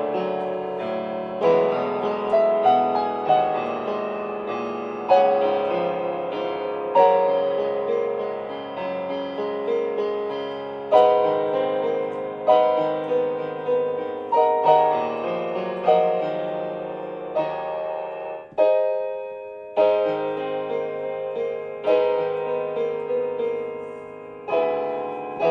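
MOSEN 88-key semi-weighted digital piano playing its piano voice: a slow song, with chords and melody notes struck about every one to two seconds and left to ring down. There is a short lull about three-quarters of the way through before the playing picks up again.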